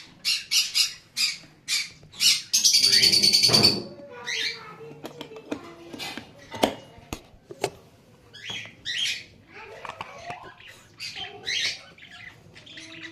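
Lovebird calling with shrill, harsh squawks: a quick run of short calls, then a loud, rapid chattering burst about two and a half seconds in, followed by scattered chirps and squawks.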